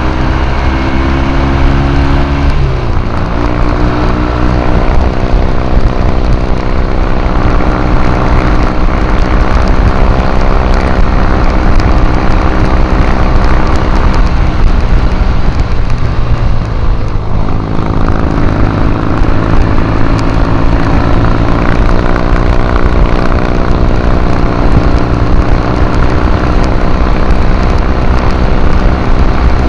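Triumph parallel-twin motorcycle engine running under way, heard from on board. Its revs drop about two and a half seconds in as it changes gear. Around the middle it eases off for a few seconds, then picks up again and pulls steadily.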